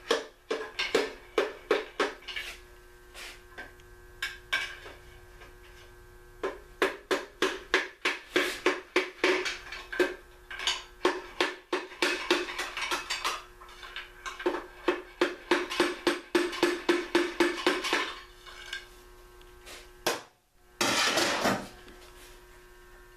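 Quick runs of metal-on-metal taps on a 1956 Packard engine block on its stand, three or four a second, with the block ringing after them. Near the end comes a harsher rasping burst of about a second.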